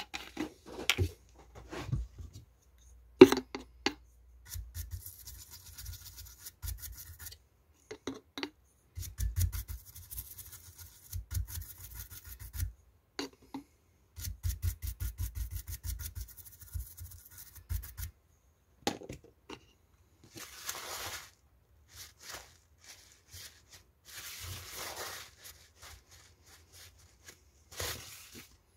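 A brush scrubbing soldering flux off a circuit board in rapid back-and-forth strokes, in several bouts, then softer rubbing with a paper towel.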